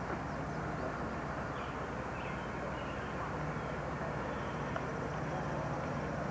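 Steady outdoor background noise with a low hum and distant voices, and a few faint high chirps.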